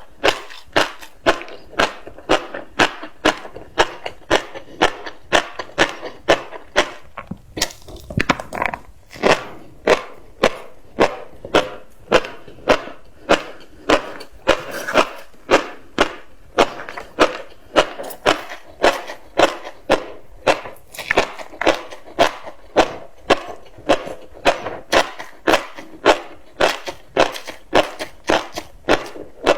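Close-miked mouth chewing tobiko (flying fish roe), the eggs crunching and popping in a steady rhythm of about two chews a second.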